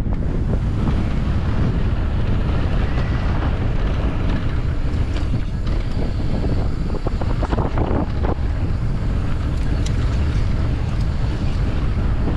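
Wind rushing over the microphone of a camera riding along on a mountain bike, a steady roar with scattered clicks and knocks from the bike on the trail.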